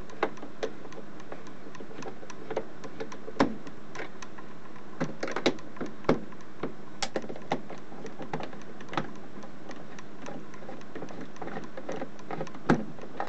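A screwdriver working the recessed screws out of a plastic calculator case: irregular small clicks, ticks and scrapes of the bit in the screw heads and of the case being handled, with a few sharper knocks.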